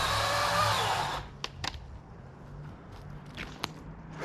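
Chainsaw running at high speed for about a second, then cutting off, followed by a few sharp clicks; the saw starts running again right at the end.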